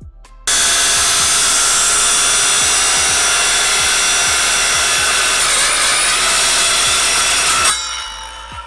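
Power saw cutting through a block of wood: it starts abruptly, runs loud and steady for about seven seconds, then winds down near the end.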